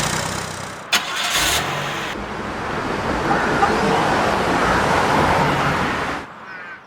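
Vehicle noise running steadily, with a sharp click about a second in, fading out near the end.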